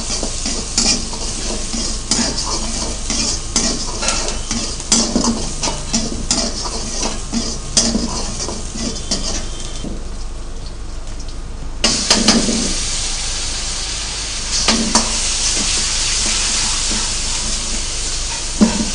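A metal ladle stirs and scrapes garlic, green chilli and onion frying in oil in a wok, with a steady sizzle and many quick clinks against the pan. About twelve seconds in, a ladle of red sauce goes into the hot wok and sets off a sudden, louder hiss of sizzling that carries on.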